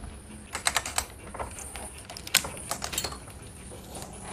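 Scattered light metal clicks and rattles, a few at a time, as a long torque wrench and its socket are handled and set onto a bolt.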